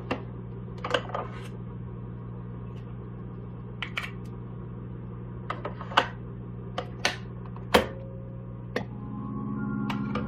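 Scattered sharp clicks and knocks from hands-on installation work, over a steady low hum. Music with held organ-like notes fades in near the end.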